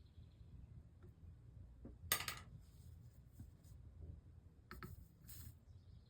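Quiet hand-work sounds from soldering a stained-glass panel: one sharp clink of a tool against the glass about two seconds in, then a few fainter clicks, over a low steady hum.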